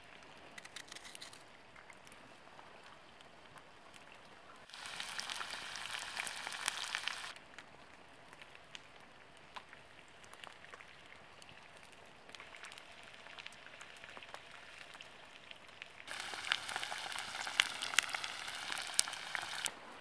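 Food sizzling and crackling in a frying pan over a campfire, heard in two stretches of a few seconds each that start and stop abruptly; between them, faint knife and handling ticks.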